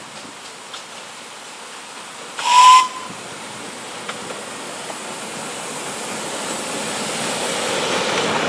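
A miniature steam locomotive gives one short whistle blast with a hiss of steam, then the sound of the engine and its carriages on the track grows steadily louder as the train approaches and passes.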